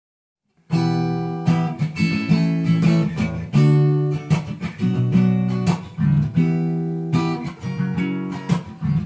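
Acoustic guitar playing the intro of a song, rhythmic chords struck over and over, starting suddenly less than a second in.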